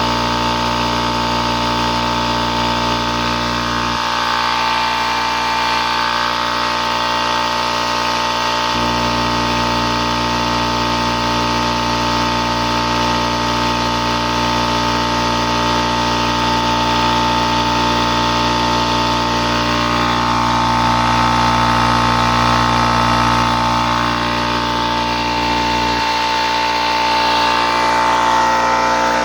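Oil-free 5 hp Charge Air electric air compressor running steadily as it pumps up its 20-gallon tank, a continuous motor hum with a steady whine over it.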